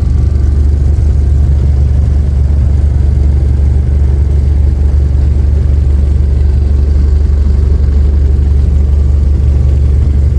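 Canal boat's engine running steadily under way: a loud, even low hum.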